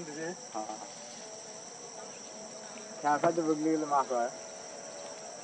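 Steady high-pitched insect chorus, with a person's voice speaking briefly about three seconds in, louder than the insects.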